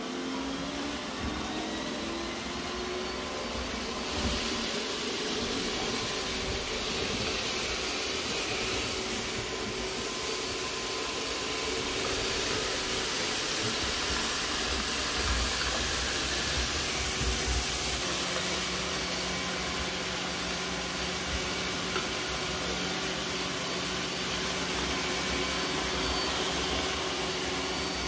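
iRobot Roomba robot vacuums (i7 and s9) running over spilled rice: a steady whir and hiss of the suction motor and brushes, with a motor tone rising in the first second or so.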